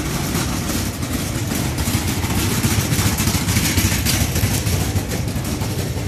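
Steady low rumble of vehicle engines idling along a busy city street, swelling a little in the middle.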